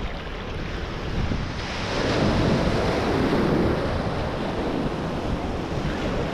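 Ocean surf breaking and washing in the shallows, a steady rush of water that swells to its loudest as a wave breaks about two to four seconds in.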